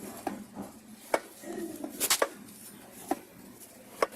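Sharp metallic knocks, about one a second with a quick double knock near the middle, as the Toyota Vios engine's crankshaft is turned over slowly with the engine apart. The knock comes from a worn crankshaft bearing, the cause of the engine's knocking, put down to missed oil changes and mixed oil viscosities.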